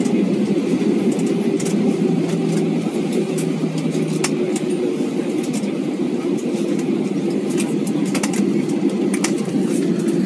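Airbus A320 cabin noise heard from a passenger seat while the airliner taxis after landing: a steady low drone of engines and rolling, with scattered light clicks and rattles.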